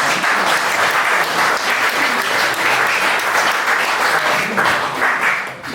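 Audience applauding steadily, then stopping abruptly.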